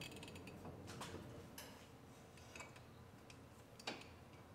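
Faint, scattered metal clicks and ticks of an inner tie rod tool being slid over and seated on a new inner tie rod by hand, the sharpest tick about four seconds in.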